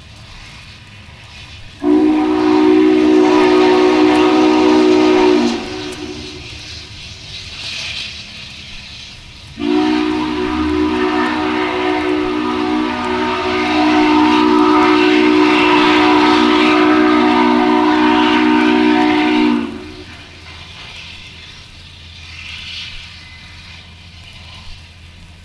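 Chime steam whistle of Duluth, Missabe & Iron Range 2-8-8-4 Yellowstone locomotive No. 226, sounding twice with several tones at once. The first blast lasts about three and a half seconds; the second starts about ten seconds in and is held for about ten seconds. A low steady rumble runs underneath.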